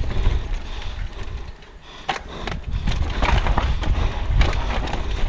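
Mountain bike ridden down a dry, leaf-covered dirt trail: tyres rolling over dirt and leaves while the bike's parts rattle and knock over bumps, over a steady low wind rumble on the microphone. It eases off briefly about two seconds in.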